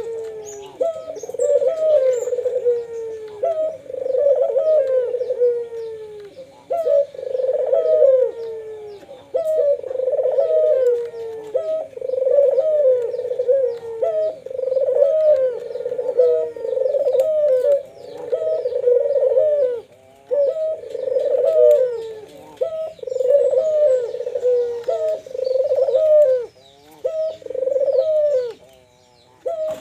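Two Barbary doves (puter) cooing, one phrase after another, each phrase about one to two seconds long with only short breaks between them, with faint higher chirps behind.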